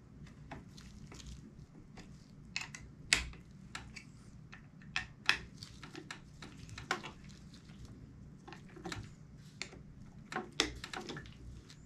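Irregular small clicks and taps of a hand tool turning the bolts on an inline skate's metal frame, tightened a little at a time. The sharpest clicks come about three seconds in and again near the end.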